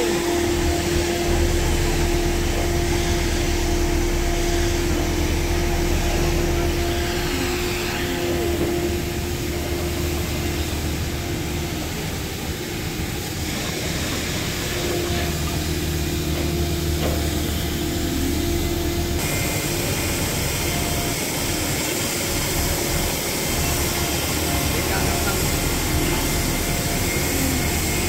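Heavy construction machinery running: a steady engine drone with a constant mechanical hum over a low rumble.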